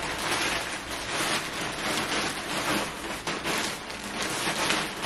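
Plastic shipping bag crinkling and rustling continuously, with irregular crackles, as clothes are stuffed into it.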